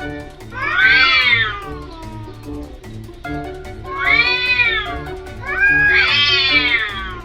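Domestic cats yowling in a standoff before a fight: three long, drawn-out yowls that rise and then fall in pitch, with background music under them.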